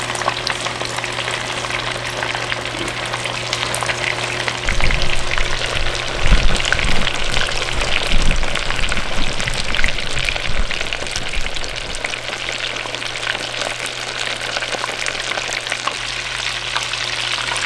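Breaded chicken tenders deep-frying in hot oil at about 350°F: a steady crackling sizzle of bubbling oil. Some low rumbling bumps come in from about five to ten seconds in.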